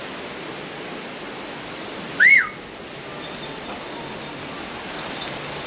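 A single short recall whistle about two seconds in, rising then falling in pitch, calling a male Harris hawk back to the fist. From about three seconds on, the faint high tinkle of the hawk's bells comes in over a steady rushing background.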